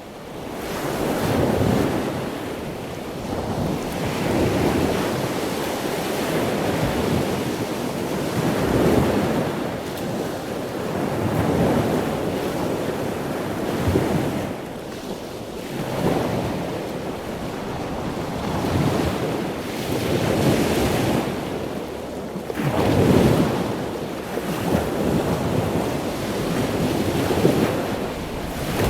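Ocean waves washing in, a steady rush that swells and ebbs every two to three seconds, fading in at the start.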